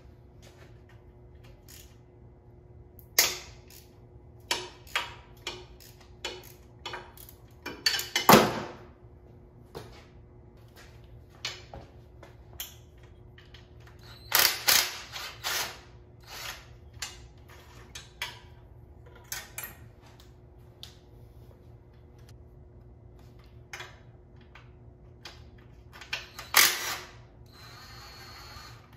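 Scattered clanks, clicks and knocks of hand tools and metal parts as a Harley-Davidson Sportster's engine is unbolted from its frame. There is a louder clatter about eight seconds in, a cluster of knocks around the middle, and a brief whir from a power tool near the end.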